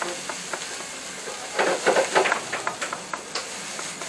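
Cabbage being lightly fried in a pan: a steady sizzle with scattered clicks of the utensil, and a louder stretch of stirring and clatter around the middle.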